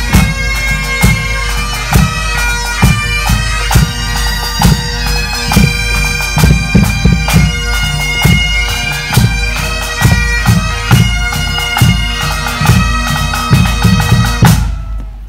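Bagpipes playing a tune over their steady drones, with a drum beating along. The music stops suddenly near the end.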